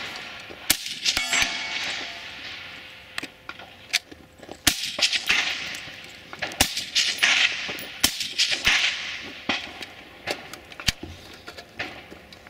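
Rifle shots fired at irregular intervals during a practical rifle stage, a dozen or so sharp cracks over several seconds, a few with a short ringing tail. A rushing hiss fills the gaps between shots.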